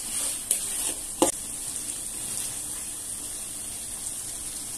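Sauce and chunks of chicken, sausage and cauliflower sizzling in a wok as they are turned with a spatula. The spatula clicks and then knocks sharply against the pan about a second in, and after that the sizzle goes on evenly.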